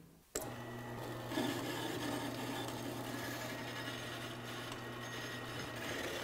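Horizontal metal-cutting bandsaw switched on about half a second in, then running steadily with a hum and a rasping hiss as its blade cuts the flared top off a forged steel axe lug clamped in the vise.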